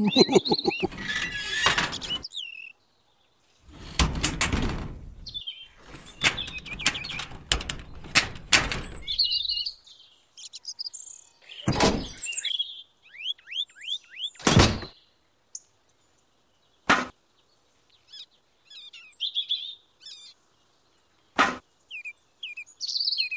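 Birds chirping over knocks and clatter of small plastic toy parts being handled and set down on a hard plastic surface. There is a dense run of clicks at the start, a clatter in the first half, and several single sharp knocks in the second half.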